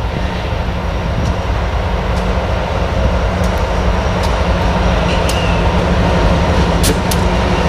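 Norfolk Southern freight train's diesel locomotives approaching, the engines running with a steady low rumble that grows louder as they near, with a few sharp clicks near the end.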